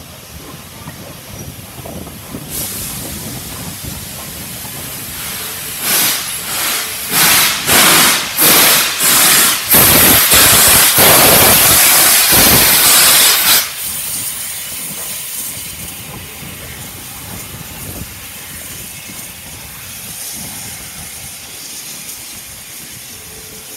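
Steam locomotive working past: a hiss builds, then loud exhaust chuffs come about two a second and run into a continuous loud blast of steam. The blast stops suddenly after a few seconds, leaving a lower steady hiss.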